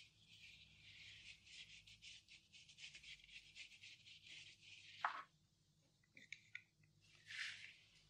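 Faint quick scrubbing strokes of a paintbrush working acrylic ink into a textured collage of paper and threads, for about five seconds, then again briefly near the end.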